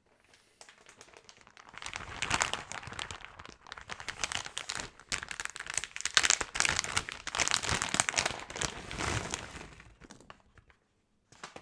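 Typing on a mechanical keyboard fitted with stock, unlubricated Durock POM linear switches: a fast, continuous clatter of keystrokes that builds up about two seconds in and dies away near the end, with one short flurry just after.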